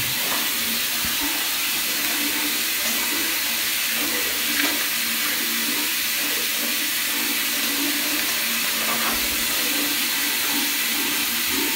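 Tap water running steadily into a bathtub, an even hiss.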